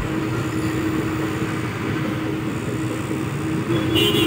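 Steady engine hum, a motor running at an even pitch, with a short high-pitched sound near the end.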